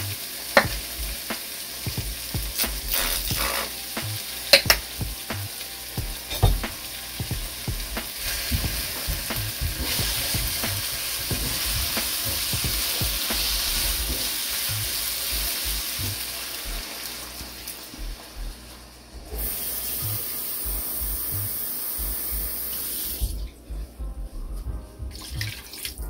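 Vegetables sizzling in a hot nonstick frying pan, stirred with a silicone spatula that scrapes and taps against the pan. Near the end, water is poured into the pan.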